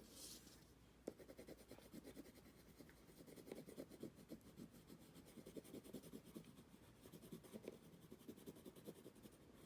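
Faint, quick scratching of colouring strokes on paper: many short back-and-forth strokes in an irregular run.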